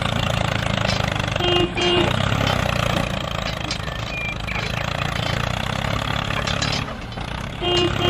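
Engine sound of a small tractor running steadily, with a rapid, even chugging. Two brief high tooting tones sound over it, about a second and a half in and again near the end.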